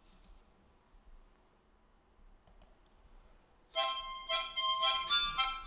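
Near silence with a few faint clicks, then about four seconds in a harmonica starts playing a melody.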